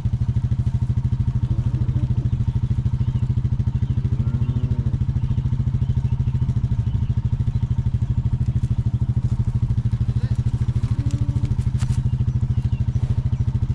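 Farm vehicle's engine running steadily with a fast, even beat, loud and close. A faint short call or voice sounds over it twice, about four seconds in and again near eleven seconds.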